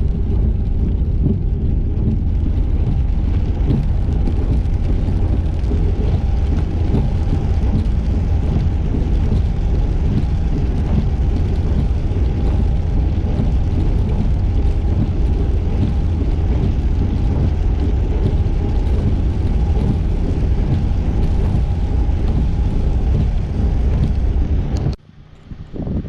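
Steady low rumble of a car driving, road and engine noise, with a faint steady tone running through it. It drops off abruptly near the end.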